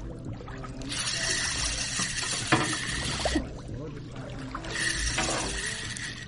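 Water sloshing and splashing against the hull in two long surges, with a single sharp click from the spinning reel being handled about two and a half seconds in.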